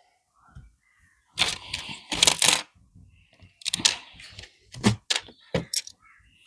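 Plastic LEGO pieces being handled and sorted: irregular sharp clicks and rattles, with a louder stretch of clattering and rustling between about one and a half and two and a half seconds in.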